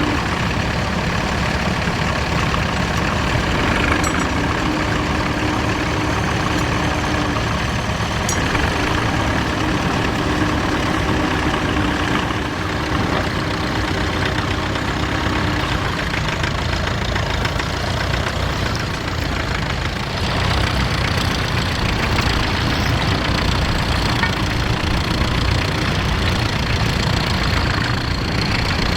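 Vintage tractor engine running steadily, a continuous low engine rumble with a faint steady drone over it through the first half.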